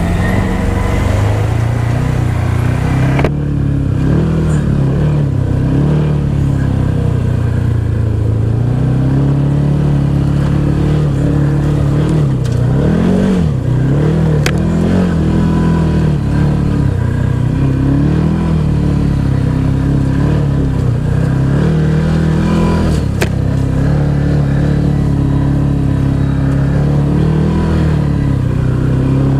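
Side-by-side UTV engine pulling in four-wheel-drive low on a slow uphill trail climb, its pitch rising and falling with the throttle. Two short sharp clicks cut through partway in.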